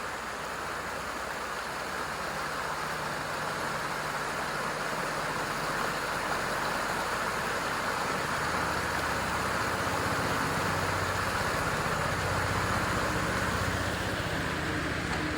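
Stream rushing under a small wooden bridge: a steady, even rush of water.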